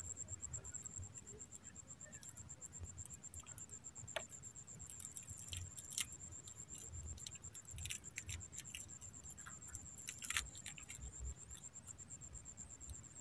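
Scattered light clicks and ticks of a fishing rod, reel and line being handled, the sharpest about 6 and 10 seconds in. Under them runs a steady, high-pitched insect drone, with a low wind rumble on the microphone.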